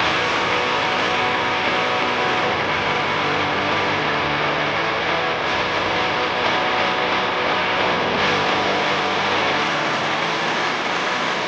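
Case excavator's diesel engine and hydraulics running steadily, heard from inside the cab.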